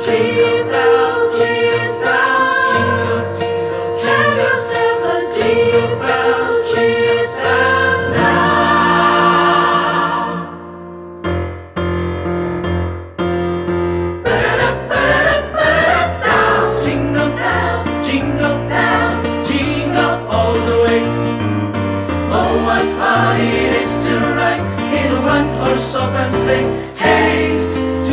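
A vocal group singing a Christmas choral arrangement in several parts over a sustained bass line. About eleven seconds in the sound thins and drops for a few seconds, then the full ensemble comes back in.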